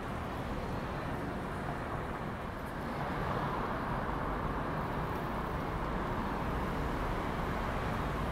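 City street traffic: a steady wash of cars driving past, getting a little louder about three seconds in.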